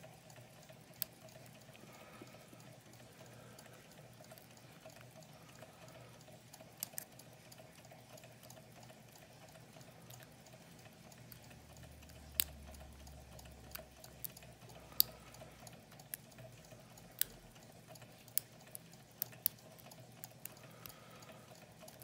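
Lock picking in a brass Welch rim cylinder with many pins: sharp, irregular clicks and light scraping as the pick works the pins. Under it runs the faint steady sound of a small coffee-cup Stirling engine.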